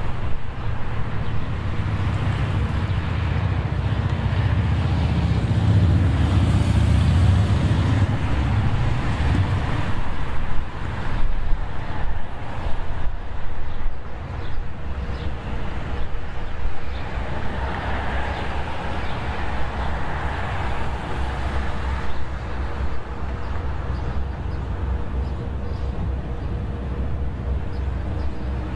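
Road traffic: vehicles passing on a two-lane road, with a low rumble that swells as one passes about six seconds in.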